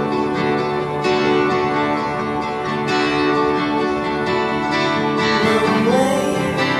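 Background music: a song led by plucked acoustic guitar with a steady rhythm.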